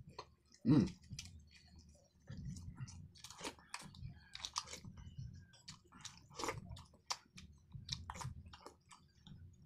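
Close-up eating sounds: chewing with many irregular wet lip smacks, clicks and slurps as a man eats sardine and miswa noodle soup from a spoon.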